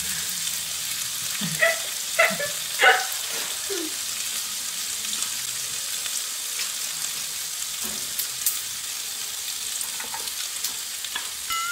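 Thin-sliced pork belly and minari sizzling in a hot pan, a steady frying hiss, with a few brief voice-like sounds in the first four seconds and occasional light utensil clicks.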